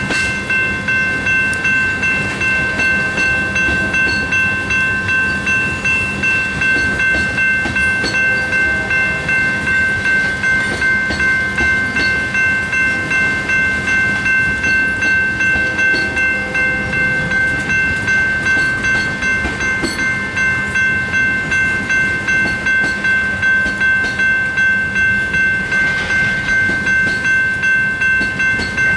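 Two electronic railroad crossing bells, a General Signals Type 2 and a Safetran Type 1, ringing continuously in an even, rapid rhythm. Under them, a slow freight train of tank cars rumbles and clatters over the crossing.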